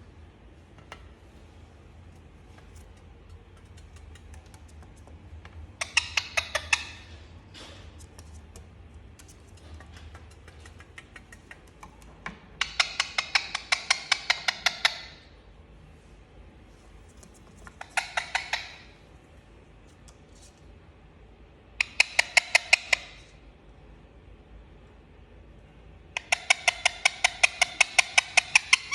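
Indian ringneck parakeet calling in five bursts, each a rapid run of sharp, evenly repeated notes, with quiet gaps between the bursts; the longest bursts come about halfway through and near the end.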